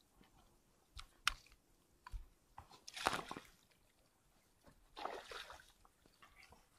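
Shallow water splashing and sloshing as hands work fish out of a fishing net, with a couple of short knocks about a second in and two louder splashes, one in the middle and one near the end.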